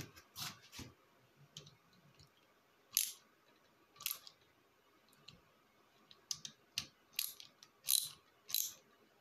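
Hand tool clicking and rasping in short bursts as the oil feed pipe fittings on the engine are gently nipped up. The clicks come singly at first, then more often in the last few seconds.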